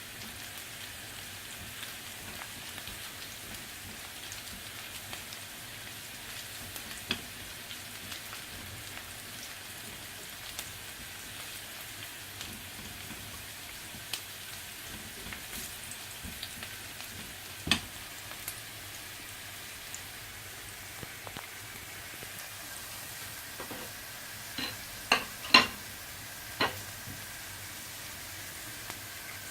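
Food frying in oil in a skillet, a steady sizzle, with scattered sharp clicks and a quick run of louder knocks near the end, like a utensil striking the pan.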